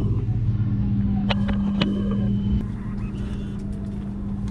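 A steady low hum with two sharp clicks a little over a second in and a short high beep-like tone about two seconds in.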